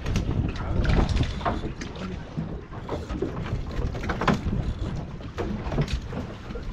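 Wind buffeting the microphone aboard a small fishing boat, a constant low rumble, with scattered light clicks and knocks throughout.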